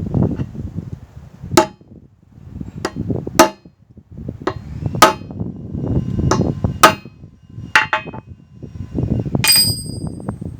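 Hammer striking a punch on the pivot rivet of long-nose pliers: about ten sharp metallic strikes, irregularly spaced, each ringing briefly, over a low rumble of handling. The pivot is being punched to take the side-to-side play out of the loose joint.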